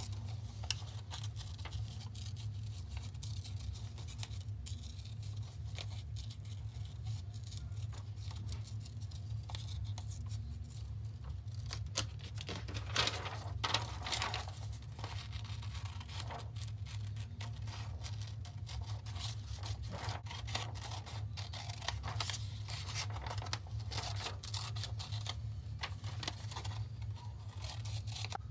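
Small scissors snipping through printer paper in many short cuts, with paper rustling as the sheet is handled and turned. A steady low hum runs underneath.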